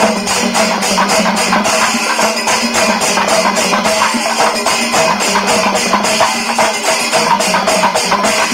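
Background music with a quick, even percussion beat over a sustained low note.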